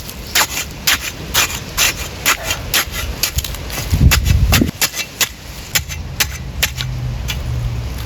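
A quick, irregular run of sharp knocks or snaps, about two to three a second, over a low wind-like rumble that swells a little past four seconds in.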